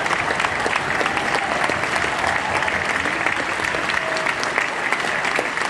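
Large concert-hall audience applauding steadily, with a few voices calling out over the clapping now and then.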